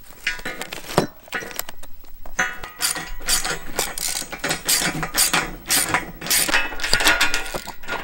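Socket ratchet wrench clicking in quick runs as bolts are tightened on galvanized steel sawmill rails, with metallic clinks of the bolts and rails between strokes.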